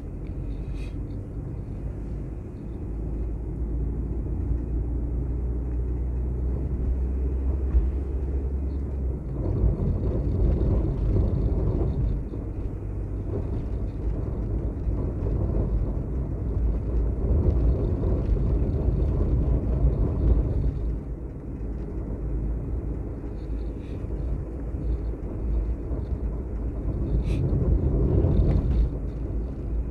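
A vehicle driving along a road: a steady low engine hum, joined from about nine seconds in by a louder, uneven low road and wind noise that rises and falls.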